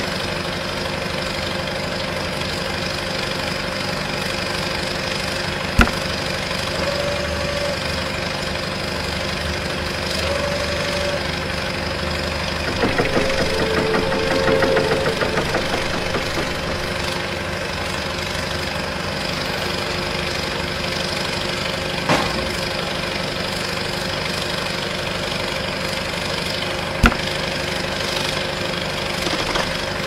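Engine idling steadily with an even, low drone, like a tractor's diesel. It gets a little rougher and louder for a few seconds in the middle, and a few single sharp clicks come through.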